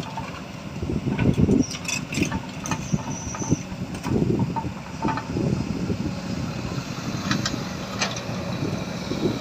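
Heavy diesel machinery working off-road: a low engine rumble that repeatedly swells and eases as the machine strains. Several sharp metallic knocks come through, about two seconds in, at four seconds and near the end.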